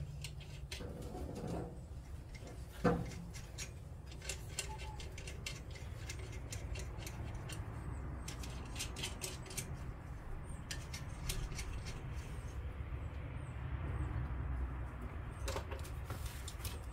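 Scattered light metallic clicks and clinks of washers and nuts being handled and fitted onto the case studs of a VW Type 1 engine, with one louder knock about three seconds in, over a low steady hum.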